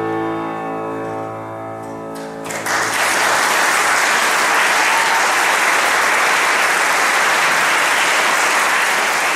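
The last chord of a solo piece on an Essenfelder grand piano rings out and fades. About two and a half seconds in, an audience breaks into applause, which then carries on steadily and is the loudest sound.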